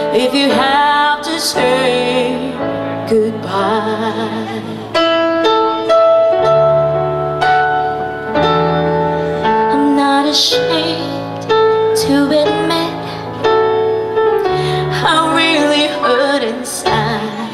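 Slow soul ballad played on an electric stage piano: sustained chords under a melody line. A woman's voice sings held, wavering notes near the start and again near the end.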